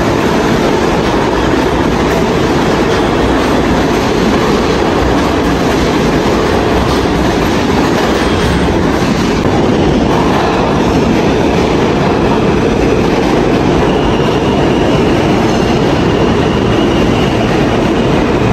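New York City subway trains running through an underground station: a steady loud rumble with wheel clatter on the rails. A faint high whine comes in near the end.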